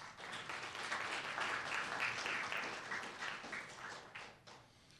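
Audience applauding, swelling within the first second and dying away about four and a half seconds in.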